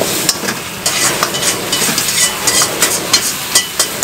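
Food sizzling in a wok over a gas burner as it is stir-fried and tossed, with the metal ladle repeatedly scraping and clanking against the wok.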